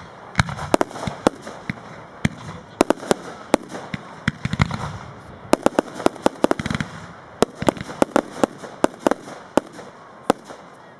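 Aerial fireworks bursting: a rapid, irregular run of sharp bangs, often several a second, over a steady hiss between them.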